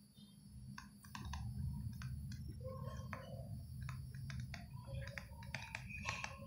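Faint, irregular clicks and taps of a stylus on a tablet screen as words are handwritten, over a low steady hum.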